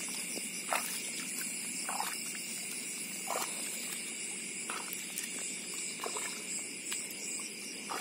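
Night rice-paddy ambience: a steady chorus of crickets and other insects, with short soft sounds about every second and a half.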